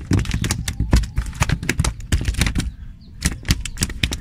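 A freshly landed fish flapping on a hard floor: a rapid, irregular run of slaps and knocks.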